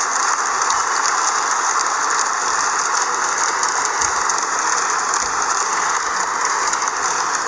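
Applause from a crowd: many hands clapping in a dense, steady run of claps.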